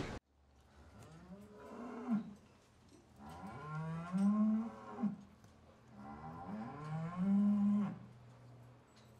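Cow mooing three times, each long call rising in pitch and then held.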